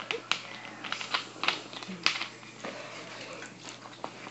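Irregular clicks and taps, a few a second, from fingers handling the recording phone close to its microphone. The clicks are sharper in the first half and weaker later.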